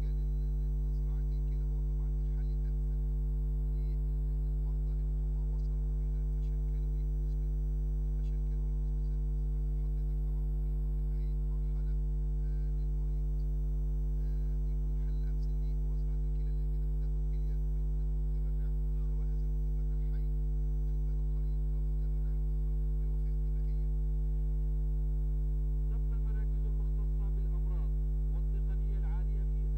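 Steady electrical mains hum on the audio track: a constant low buzz with a stack of evenly spaced overtones, unchanging throughout.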